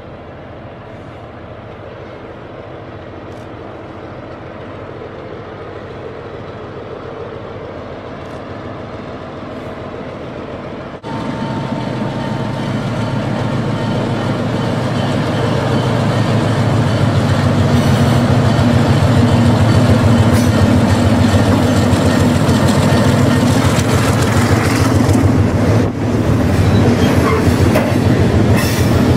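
HO scale model freight train running past close by, its wheels rumbling and clicking over the track. It grows steadily louder, with a sudden jump about eleven seconds in as the diesel locomotive comes near.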